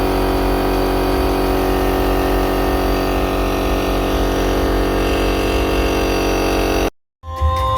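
A steady electrical or mechanical hum made of many fixed tones, holding level, then cutting off abruptly about seven seconds in.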